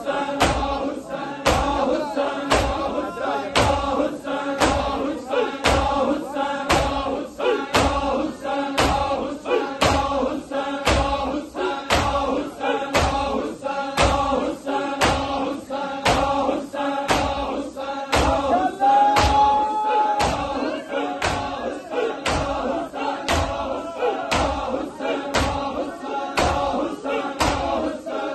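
Large crowd of men chanting a Muharram nauha in unison while beating their chests together in matam, a steady thud about one and a half times a second.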